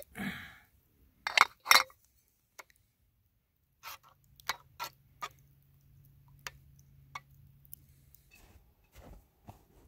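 Metal camp cook pot and lid: two sharp clanks about a second and a half in as the lid comes off and is set down, then lighter clinks of a metal spoon against the pot while stirring soup, with a few faint scattered ticks.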